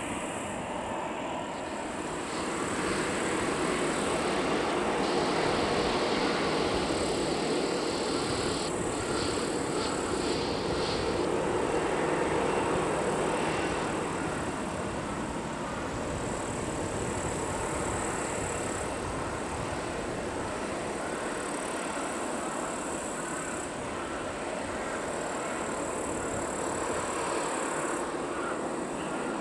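Jet engines of a Boeing 737-800 airliner at taxi power, a steady rushing drone. It swells over the first dozen seconds and then eases a little.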